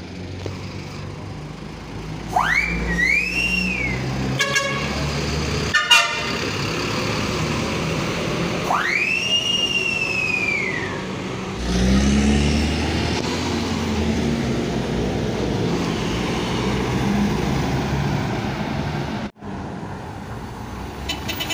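City bus diesel engines running at the kerb and pulling away, the engine growing louder and rising in pitch about twelve seconds in. Two high whistles that rise and then fall sound about two and nine seconds in, with two short sharp rattling clicks between them.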